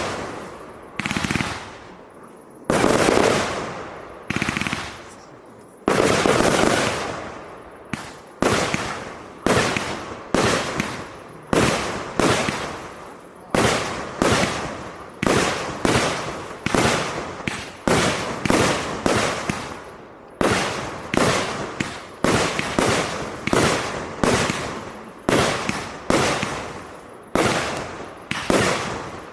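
A 192-shot 30mm fireworks cake firing shell after shell. Each shot is a sharp bang that trails off in a long echo, slower at first and then about one or more a second.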